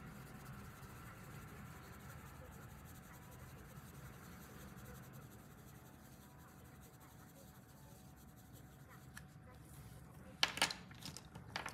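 Faint scratching of a pink colouring pen on paper as a small area is filled in. Near the end come a couple of short sharp clicks.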